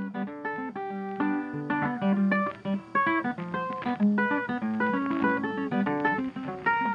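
Background music: plucked acoustic guitar playing a quick run of short notes.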